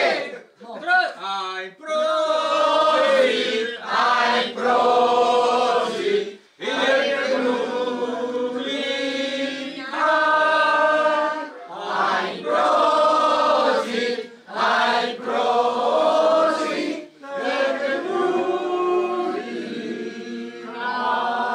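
A group of men and women singing a drinking toast together, in phrases with brief pauses between the lines.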